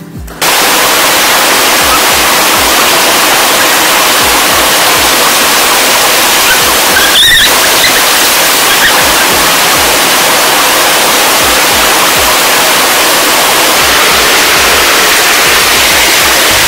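Shallow stream rushing over rocks: a loud, even water noise that cuts in abruptly about half a second in and holds steady.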